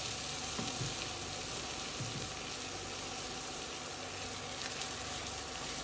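Pollock filets sizzling steadily in butter and oil in a skillet.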